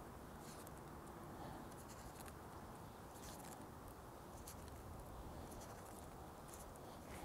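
Faint handling sounds of raw bacon strips being lifted and folded back on baking paper: scattered light rustles and small ticks.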